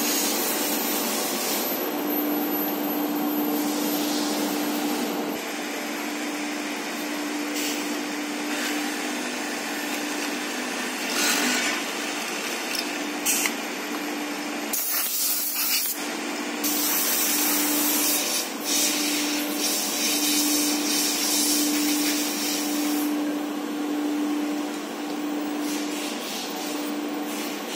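Steady workshop machinery noise in a PVC shutter factory: a whirring hum with a faint steady tone. A few brief, louder hissing bursts come near the middle.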